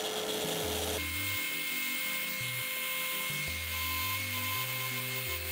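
Random orbital sander running steadily over a hardwood slab with a whine, sanding a bowtie inlay flush while the glue is still wet so the sanding dust fills the joint's gaps. The whine changes pitch about a second in.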